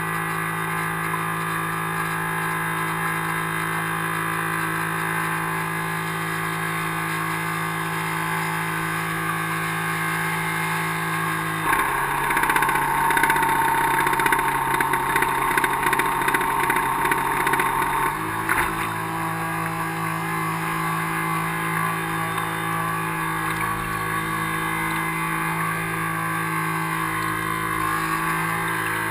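RC harbour boat's 380-size brushed electric motors running at a steady speed. About twelve seconds in they speed up and run louder for about six seconds, then drop back to the steady run.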